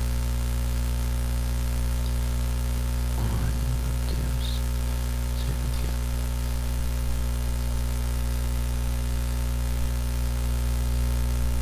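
Steady electrical mains hum with a buzz above it, a constant low drone of several even tones. A brief faint murmur of voice comes about three seconds in.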